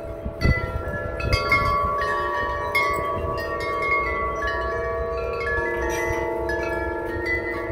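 Wind chimes ringing: many long-held tones struck one after another and overlapping, with a few low thumps in the first second or so.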